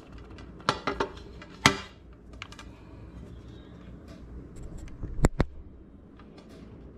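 Handling noise from cables and a sound card on a desk. There are a few sharp clicks and knocks about a second in, and a quick double knock a little after five seconds.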